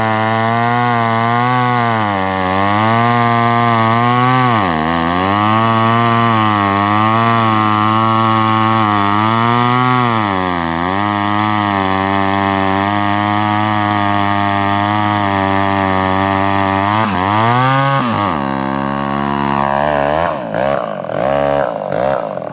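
Chainsaw running a .325-pitch full-complement chain on a 24-inch bar, cutting a large log at high speed under load. The engine pitch sags twice as the saw bogs in the cut and recovers each time. About 18 seconds in it briefly revs higher, then drops to a lower, uneven speed near the end.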